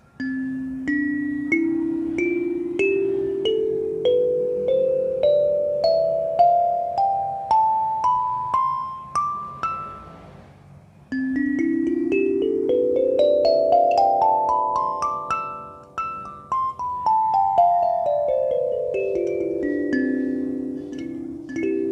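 A 17-key solid-body kalimba, its metal tines plucked one at a time, each note ringing on. It climbs a scale from the lowest to the highest tine over about ten seconds, then after a short pause runs quickly up and back down again.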